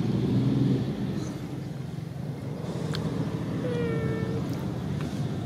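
A baby macaque gives one short, slightly falling cry a little under four seconds in. A low rumble runs under the first second.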